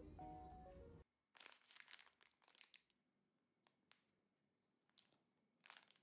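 Background music with steady piano-like notes cuts off about a second in. Then a soft plastic pack of cleaning wipes crinkles quietly in the hands in a series of short rustles.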